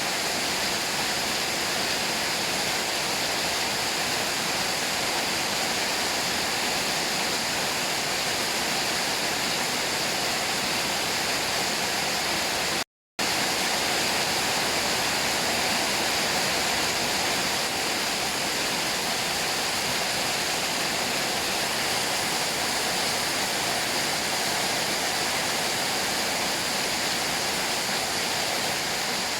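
Steady rushing water with no rhythm or pitch, cutting out completely for a split second a little before halfway.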